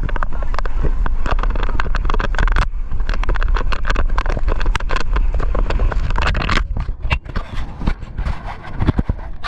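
Wind buffeting the microphone and water slapping and spraying against an inflatable towable tube pulled at speed. The rush drops off about six and a half seconds in, leaving scattered knocks and splashes.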